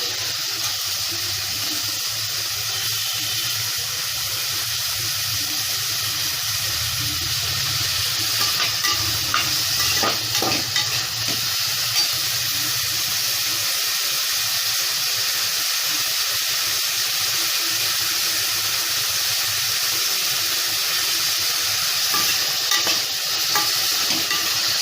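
Ingredients sautéing in hot oil in a pressure cooker, sizzling steadily, with a few clicks and scrapes from stirring.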